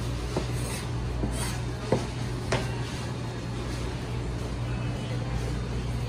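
Steady low hum of kitchen equipment, with a few sharp knocks in the first half from a knife chopping ham on a cutting board.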